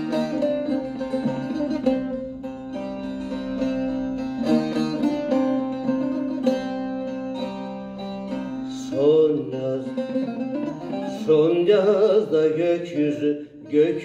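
Bağlamas (long-necked Turkish saz) playing a rapid plucked instrumental interlude of a Turkish folk song. From about nine seconds in, a male voice sings with a wavering pitch over the strings.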